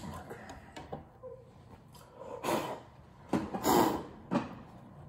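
Three puffs of breath blown across a vinyl record, the middle one longest and loudest, after a few light clicks of handling the record.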